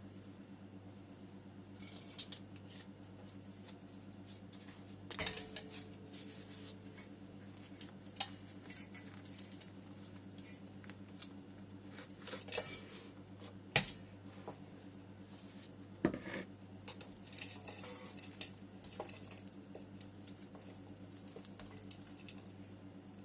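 Ceramic plant pots being handled during planting: scattered clinks, scrapes and rustles, with two sharper knocks about 14 and 16 seconds in. A steady low hum runs underneath.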